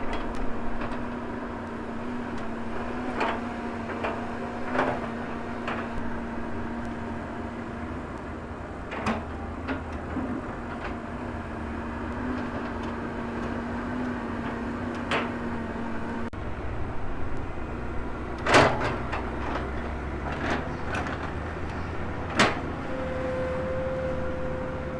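Volvo excavator's diesel engine running steadily under hydraulic work, with sharp knocks from the bucket and boom every few seconds; the loudest comes about two-thirds of the way in.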